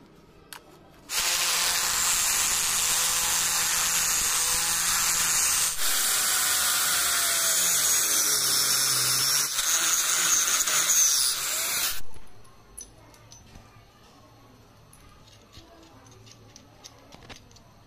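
Angle grinder with a core drill bit cutting a hole in a granite slab through wet slurry: it starts about a second in, runs steadily with a brief dip near the middle, and stops after about eleven seconds. Faint clicks follow.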